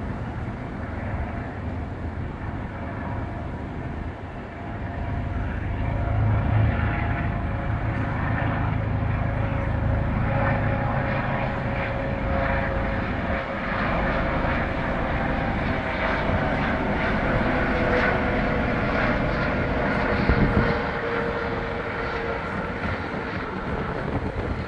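Eurocopter MH-65D Dolphin helicopter in flight, its rotor and turboshaft engines running with a low rumble and a steady whine. The sound grows louder about five seconds in and eases slightly near the end.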